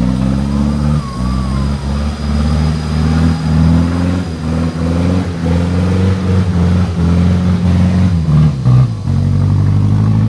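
Off-road 4x4's engine revving hard under load as it pulls through deep mud, its pitch rising and falling with repeated bursts of throttle and brief dips.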